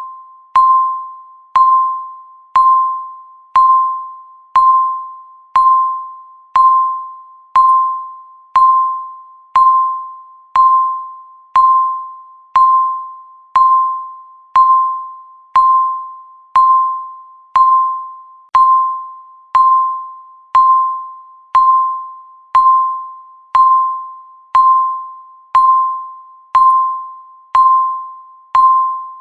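Countdown timer's tick sound effect: a short, bell-like electronic ping once a second, each one struck sharply and quickly fading, marking the seconds.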